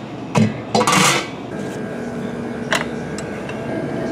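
Heavy lid of a large laboratory centrifuge being handled and shut: a knock, then a loud metallic clatter about a second in, and a sharp click near the middle. A steady machine hum with a few held tones follows.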